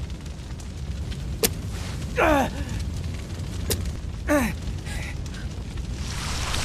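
A steady low rumble with two sharp cracks, each followed by a short cry that falls in pitch. A hissing noise swells near the end.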